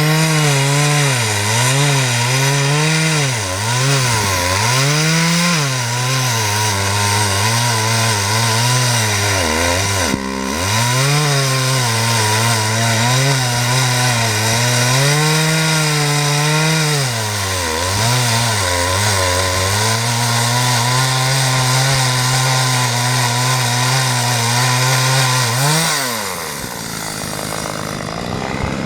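Two-stroke chainsaw cutting through pine wood. The engine speed repeatedly sags and recovers as the chain bites, with a brief drop about ten seconds in. Near the end the revs fall away toward idle.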